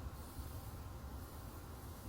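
The LG compressor of a Cartour ET36 portable car fridge running during its cooling test after repair: a faint, low, steady hum with a light hiss above it.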